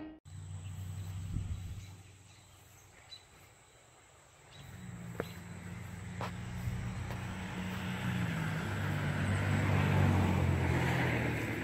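Outdoor background with a low, uneven rumble that fades out for a couple of seconds and then builds back up. There are two faint clicks about a second apart midway, and an insect-like hiss grows louder toward the end.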